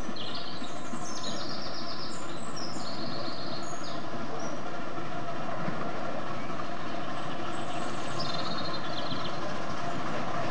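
A 10.25-inch gauge 2-4-2T miniature steam locomotive running towards the listener with its train of carriages, a steady running noise of engine and wheels on rail. High trilling calls sound over it in the first few seconds and again about eight seconds in.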